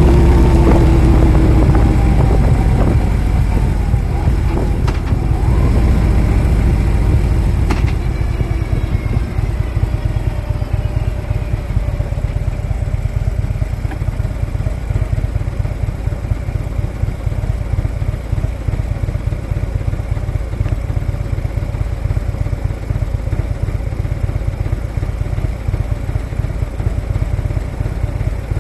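Harley-Davidson V-twin motorcycle engine running, its pitch falling as it slows over the first few seconds. About eight seconds in it drops to a quieter, steady low rumble, with a couple of sharp clicks just before.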